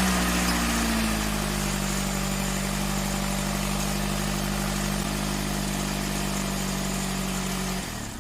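Vauxhall Corsa engine idling steadily, its idle easing down slightly in the first second after starting. The sound cuts off abruptly near the end.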